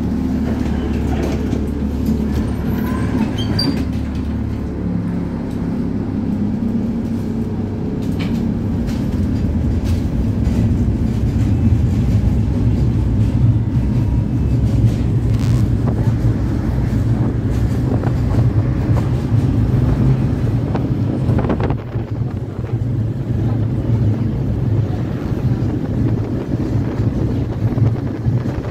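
Tatra T4R tram running along the track, heard from inside the car: a steady low rumble that grows louder about ten seconds in.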